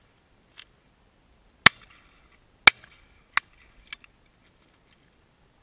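Shotguns firing at driven partridges: three sharp reports about a second apart near the middle, with fainter shots just before and after.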